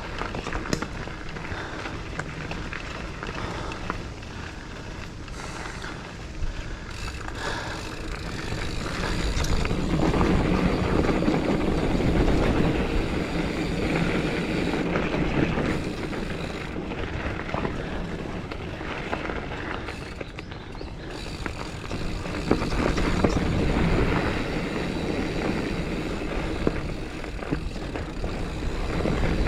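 Giant Fathom mountain bike rolling along a dirt trail: a steady rush of tyre and wind noise with scattered clicks and rattles from the bike, swelling louder about a third of the way in and again near the end.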